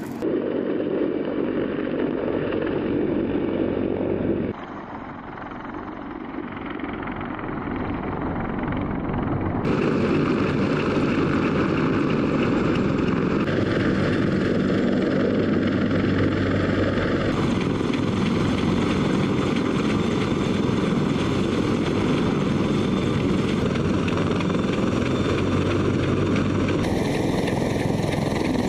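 CH-53 heavy-lift helicopters running, a loud, steady noise of rotors and turbine engines with a faint whine on top. The sound changes abruptly in level and tone several times, and is quieter for a few seconds near the start.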